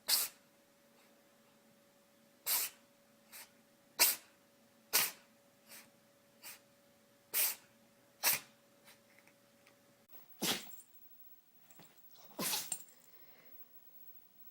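An animal sneezing again and again: about a dozen short, sharp sneezes a second or so apart, some loud and some weaker.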